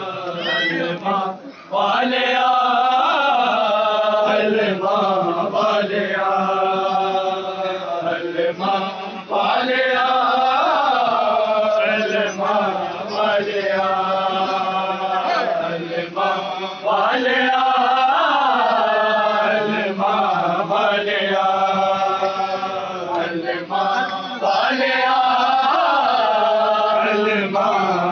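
Men's voices chanting a nauha, a Shia Muharram mourning lament, in long sung phrases separated by short breaks.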